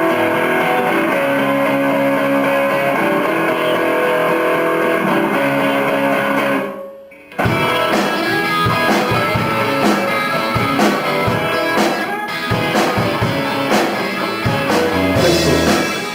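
Rock band recording. Guitar chords are held and layered for about six seconds, then break off briefly. Guitar then comes back in with a steady drum-kit beat.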